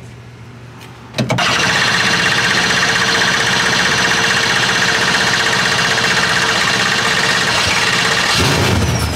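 LS V8 in a Nissan 240SX S13 drift car started from the dash switch panel, catching suddenly about a second in and then running steadily and loudly. This is its first start after four weeks sitting and a fuel-system rework.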